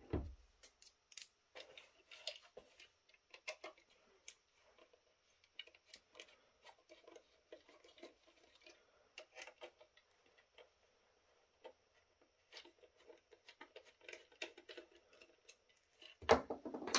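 Screwdriver working small, stubborn screws out of a plastic fish-finder housing: faint, irregular clicks and scrapes. A louder knock comes near the end.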